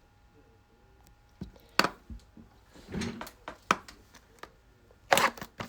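Trading card packaging being handled and torn open, with sharp snaps and crackles of wrapper and cardboard. It starts after a quiet first second or so and comes in about five separate bursts; the loudest is near the end.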